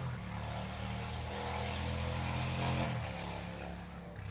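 A steady low engine drone, its pitch shifting about three seconds in.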